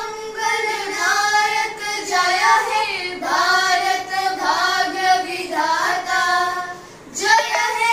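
A small group of children singing together in unison, sustained sung phrases with short breath pauses about three seconds in and near the end.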